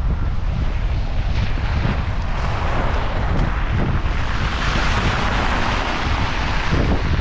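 Wind buffeting the microphone in a blizzard, a heavy steady rumble. A rush of hissing noise swells through the middle and fades again.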